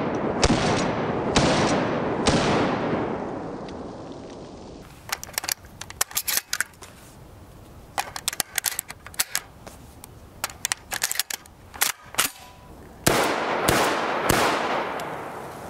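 Remington Model 11 short-barrelled 12-gauge recoil-operated shotgun firing three shots about a second apart, each echoing away. Then comes a run of small metallic clicks as shells are pushed into its magazine tube, and three more quick shots near the end.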